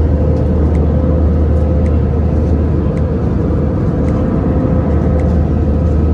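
Hand-held hair dryer blowing steadily at full power, a loud even whir with a low hum and a steady tone.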